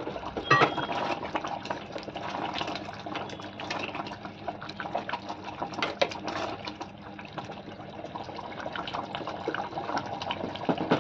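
Wooden spatula stirring and mashing thick, cooking tomato chutney in an aluminium pressure cooker: wet squelching and scraping against the pot, with sharp knocks of the spatula on the pot about half a second in and near the end.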